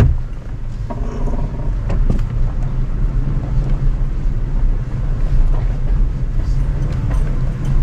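Toyota Tacoma pickup crawling over rock ledges into a creek crossing, heard from inside the cab: a low, steady rumble of engine and tyres on rock, with a few faint knocks.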